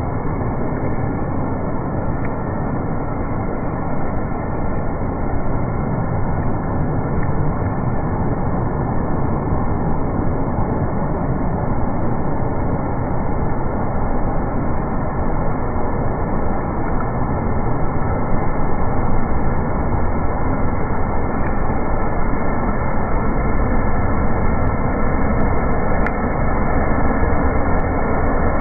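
Rainwater rushing in a steady torrent along a flooded roadside in heavy rain, a dense, rumbling wash of flowing and splashing water.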